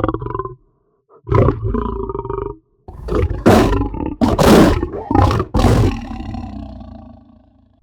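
Lion roar sound effect: a short growl, then a longer growl, then several loud roars in quick succession, dying away in a long fading tail.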